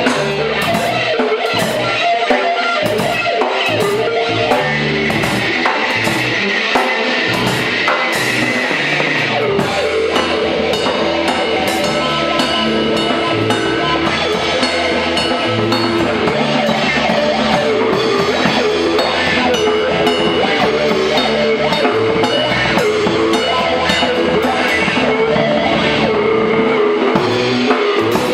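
Live rock band playing: electric guitar over a drum kit, loud and steady. The low end fills out about ten seconds in.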